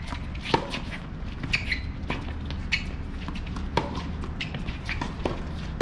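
Tennis court sounds on a hard court: irregular sharp knocks of tennis balls being struck and bounced, with short squeaks, over a steady low rumble.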